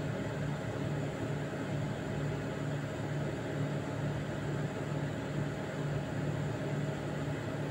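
Steady low machine hum with a slight even pulse, over a background hiss.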